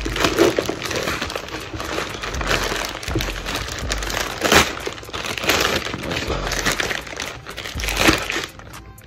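Plastic poly mailer bag crinkling and tearing as it is ripped open by hand, with a couple of sharper rips. It goes quieter near the end.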